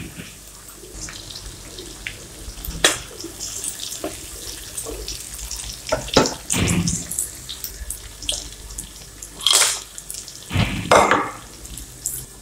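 Onions sizzling and crackling in hot oil in a wok, with a few louder bursts of sizzle about halfway and again near the end as more ingredients, chopped tomatoes among them, go in and are stirred with a wooden spatula.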